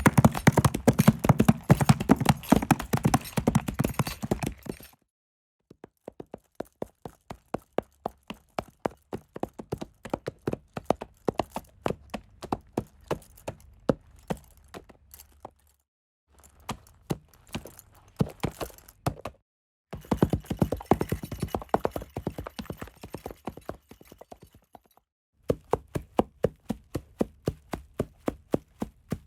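Horse hooves clip-clopping in a series of separate foley takes. It opens with a fast, dense run of loud hoofbeats, followed by steady walking steps about two to three a second. Short silences split the takes, and a second fast run comes about twenty seconds in.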